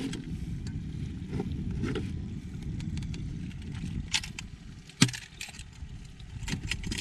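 A large snook handled on a boat's deck, with a few light knocks and one sharp thump about five seconds in, over a steady low rumble.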